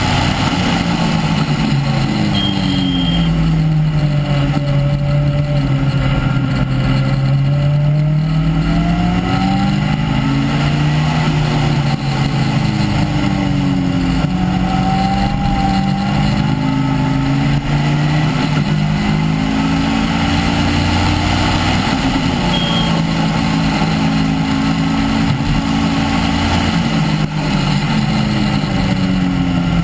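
Caterham R300 four-cylinder engine at full throttle on track with an un-silenced exhaust, heard from on board. Its note falls and rises again and again as the car accelerates, lifts and brakes through the corners.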